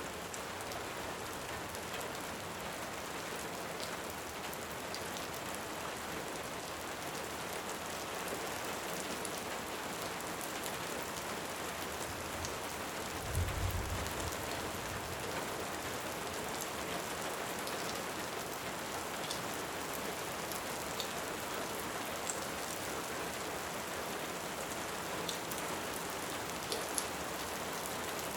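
Steady heavy rain, with scattered small crackles from a wood fire and one short low rumble of distant thunder about halfway through.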